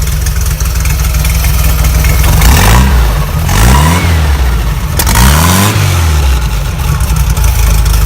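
VW engine with IDF carburettors idling smoothly, revved twice through its throttle linkage, about two and a half and five seconds in, each time dropping straight back to idle.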